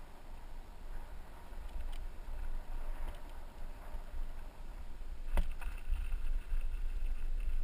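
Bicycle rolling over asphalt, with a steady low wind rumble on the bike-mounted camera's microphone and tyre noise. About five seconds in a sharp knock comes as the bike drops off the pavement edge onto gravel, followed by louder rolling noise and a faint high squeal.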